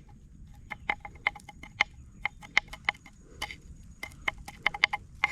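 A series of short, sharp ticks, about three a second and slightly uneven, each with the same ringing pitch.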